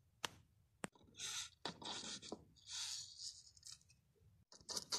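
Scraping and rustling as plastic toy figures and a small knitted fabric mattress are handled and moved on a dollhouse set. A couple of sharp clicks come near the start, then several short rustling scrapes.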